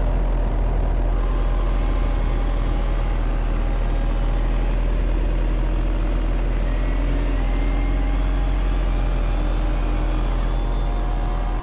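Remote-control construction machine running: a steady, loud low hum with thin motor whines that drift slowly up and down in pitch.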